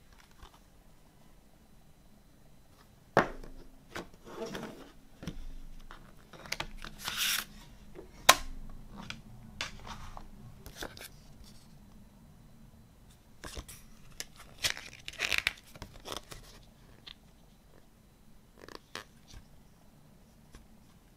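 A plastic CD jewel case being handled and opened, with sharp plastic clicks about three and eight seconds in, the second the loudest. Paper rustles in short bursts as the booklet is taken out and unfolded.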